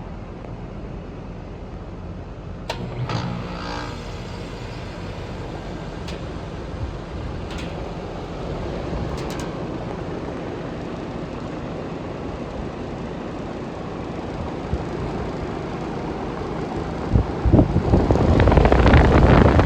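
2010 Rheem Classic heat pump outdoor unit running in its defrost cycle, a steady hum with a few clicks. A loud rushing whoosh builds near the end.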